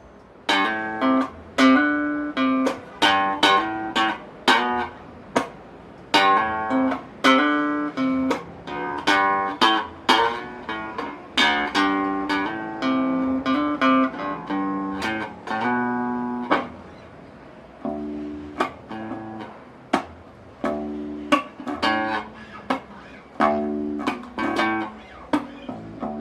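Electric bass guitar played through an Epiphone Studio 15B practice amp: a run of separate plucked notes, each with a sharp attack that rings and fades, played more softly in the second half. The amp is on its high input with the master at 2 and the EQ balance at 6.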